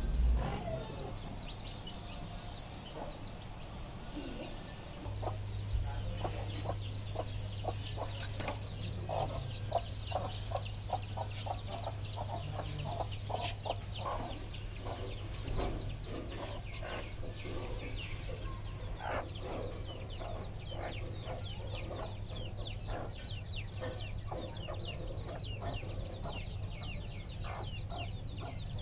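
Domestic hens clucking with a flock of chicks peeping rapidly and continuously over them. A steady low hum comes in about five seconds in.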